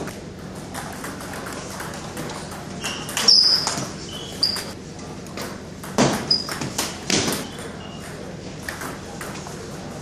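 Table tennis rally: the ball clicking off paddles and the table in quick sharp hits, with brief high sneaker squeaks on the wooden floor. The hits and squeaks are loudest about three seconds in and again around six to seven seconds.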